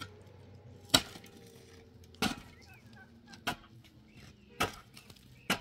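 Repeated blows: five sharp knocks, evenly spaced about one a second.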